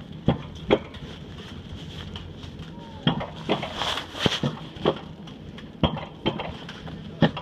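Handling noise from a phone held against hand or clothing: irregular sharp knocks and rubbing on the microphone, about nine knocks over several seconds.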